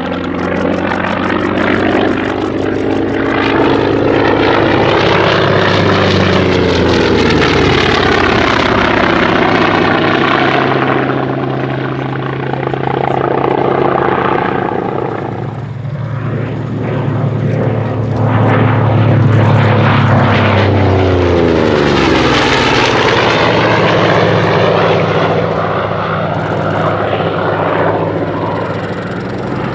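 The Pratt & Whitney R-2800 radial engine of a Goodyear FG-1D Corsair running at display power. The aircraft passes twice, its engine note falling in pitch as it goes by, once about a quarter of the way in and again about three quarters of the way in.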